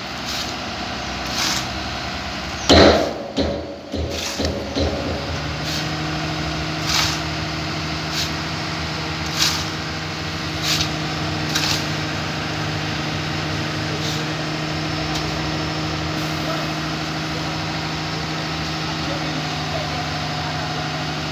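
Dump truck engine running the hydraulic tipper as the loaded body lifts to unload sand. There is a loud knock about three seconds in, and the engine settles into a steady drone from about five seconds in, with occasional short ticks over it.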